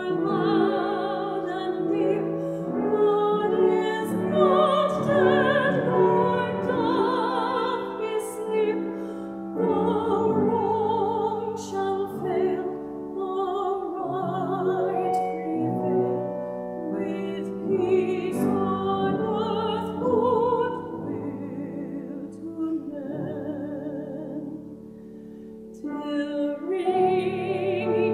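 A solo woman's voice singing a classical-style sacred song with wide vibrato, over instrumental accompaniment. The music goes briefly softer a little before the end, then swells again.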